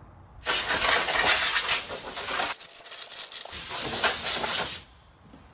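Compressed-air blow gun blasting sanding dust off ATV plastic body panels: a loud rushing hiss for about four seconds that changes in tone partway through as the nozzle moves over the panel, then stops.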